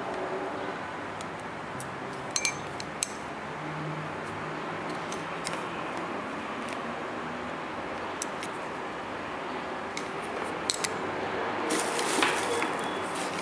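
A few light metallic clicks from a stethoscope being handled, over a steady hiss. Near the end comes a busier patch of small rustling and crackling.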